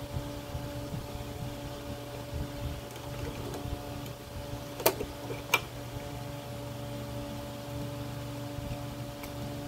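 Plastic wiring-harness plug being fitted onto a mass air flow sensor, with two sharp clicks about five seconds in, over a steady hum.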